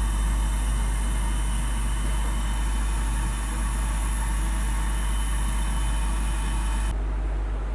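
Quick hot air rework station's blower running steadily in cool-down mode, a constant whir with a low hum and a thin high whine, as the nozzle cools after desoldering. The sound cuts off sharply about seven seconds in.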